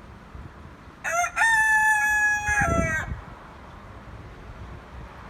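Rooster crowing once, about a second in: a short opening note, then one long held call that drops in pitch at the end, lasting about two seconds.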